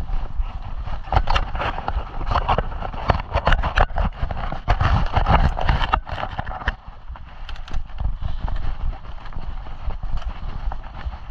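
Mountain bike rolling over a rough dirt trail: tyres crunching on the ground, and the bike and camera mount rattling with a quick run of clicks and knocks over the bumps, easing to a steadier rumble about two-thirds of the way through.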